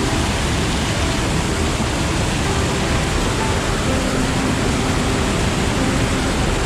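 Waterfall: a sheet of water pouring over a stone ledge into a churning pool, a steady, loud rush heard close up.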